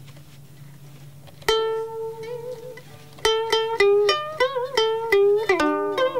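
Southern Vietnamese đờn ca tài tử music opening on a solo plucked string instrument: one note about a second and a half in, then from about 3 s a quick run of plucked notes with bent, wavering pitches. A low hum sits under the first second and a half.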